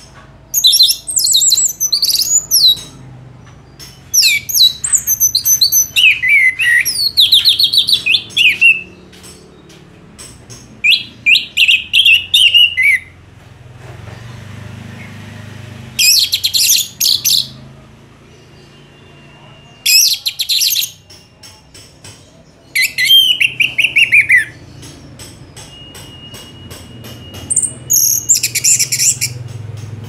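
Orange-headed thrush singing in repeated bursts of rapid, high, sliding and twittering phrases, about seven bursts separated by short pauses.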